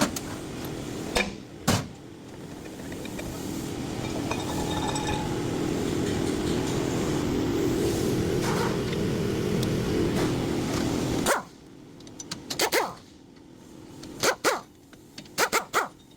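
Hyundai Elantra's rear wheel bearing droning, a low hum that grows louder over several seconds and cuts off abruptly about eleven seconds in: the sign of a worn wheel bearing. A dog then barks several times, and a couple of sharp clicks come near the start.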